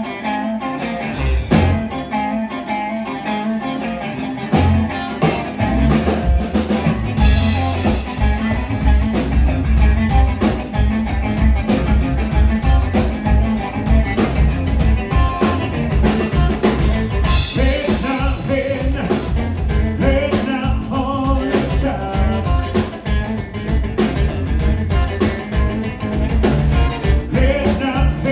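A live blues band playing: guitar over bass and a steady drum beat, the beat filling out about five seconds in.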